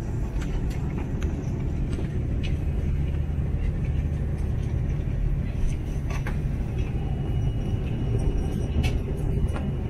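Airbus A330-300 cabin noise on the ground: the Rolls-Royce Trent 700 engines at idle give a steady low hum, with a few light clicks scattered through it.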